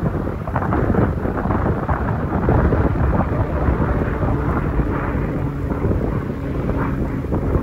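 Strong wind buffeting the microphone in a loud, rough rumble, with the engine of a low-flying single-engine floatplane water bomber droning underneath, its steady pitch coming through from about halfway.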